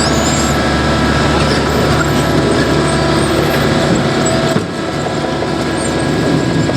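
Heavy diesel engine of asphalt paving equipment running steadily, dropping slightly in level about four and a half seconds in.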